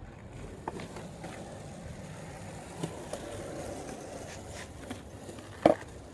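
Skateboard wheels rolling on concrete pavement, with a few light clicks and one sharp clack of the board near the end.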